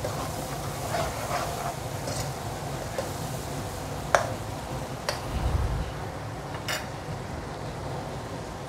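Sliced onions sizzling in oil in a wok while a long-handled metal spoon stirs them, clinking and scraping against the pan several times, with the sharpest knock about four seconds in. The stirring stops near the end, leaving the steady frying sizzle as the onions brown.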